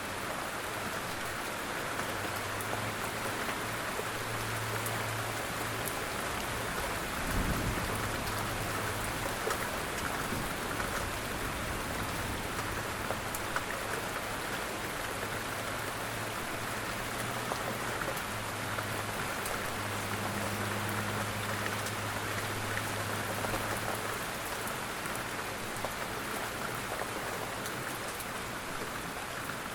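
Steady rain falling, with fine scattered drop patter. A low hum comes and goes underneath for much of the time, and there is a soft low thump about seven seconds in.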